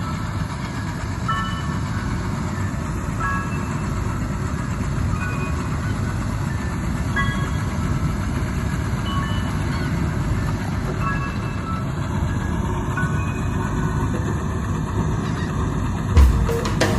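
Steyr Kompakt tractor running steadily while pulling a Kubota baler at work: a continuous mechanical rumble of engine and baler.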